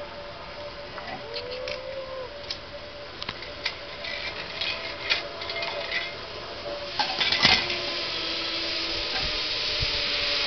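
Zip-line trolley running along the steel cable: a rushing hiss that builds over the last few seconds and grows steadily louder as the rider comes in. Scattered clicks come before it.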